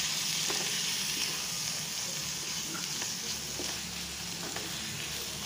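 Chicken pieces and green masala paste sizzling in a frying pan while a wooden spatula stirs them, with light scrapes and taps against the pan.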